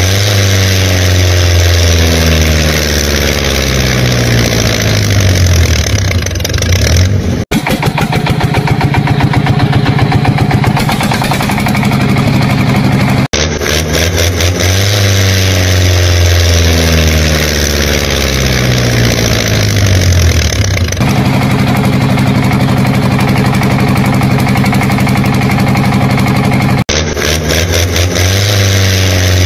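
Engine sound effect laid over the soundtrack and looped, repeating about every 13 seconds with abrupt cuts. In each pass the pitch sweeps up and down as it revs, then settles into a fast, even chugging, then a steady hum.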